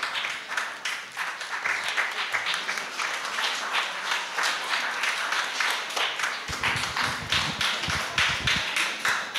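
Audience applauding with a steady stream of hand claps. A low rumble joins in from about six and a half seconds in.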